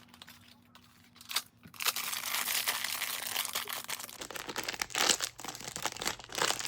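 Blind-box packaging being torn open by hand: wrapping crinkling and tearing, starting with a few short rips and then crackling almost continuously from about two seconds in.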